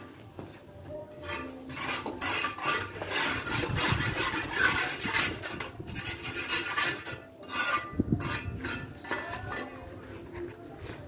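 Repeated gritty scraping strokes of a hand tool against a concrete block, heaviest through the middle seconds, with a dull knock about eight seconds in.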